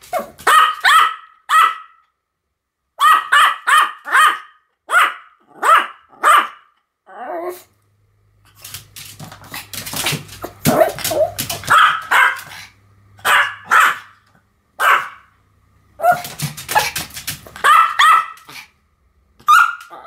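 Pomeranian barking repeatedly in quick groups of two to four short barks. Around the middle there is a noisier stretch with few clear barks.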